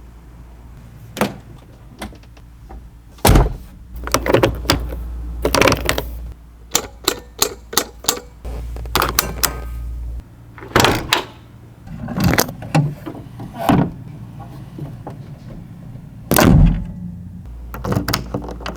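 A 1989 Mercedes-Benz 560SL's doors, latches and controls being worked: a long irregular run of sharp clicks and knocks, with two heavier thunks, one about three seconds in and one near the end.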